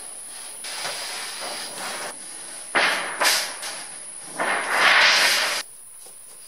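A long 5V crimp metal roofing sheet being dragged up over the roof edge and slid into place, scraping and rattling in several noisy bursts, the loudest near the end, before the sound cuts off suddenly.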